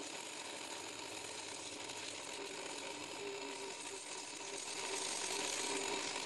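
Sandpaper pressed against a cork rod handle spinning on a home-built cork lathe: a steady, coarse sanding hiss over the hum of the lathe's motor, getting a little louder in the second half.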